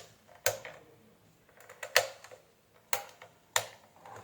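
A few sharp clicks from a Topmatic hair dryer being handled and switched, with no fan or airflow noise: the element heats but the blower motor is not running.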